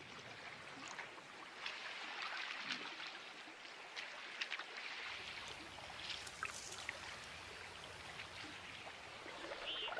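A thawing river running and trickling, with scattered small clicks and tinkles: spring meltwater as the river ice begins to break up.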